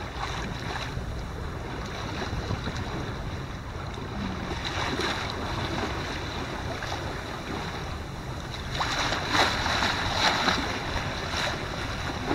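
Wind rumbling on the microphone over the steady wash of choppy sea water along a sailboat's hull, with a few louder splashes near the end.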